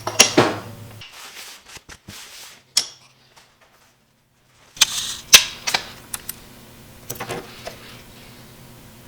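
Hand work on a walnut workpiece during a bow tie inlay: sharp taps and knocks with scraping strokes between them. The sound drops out completely for about a second and a half midway.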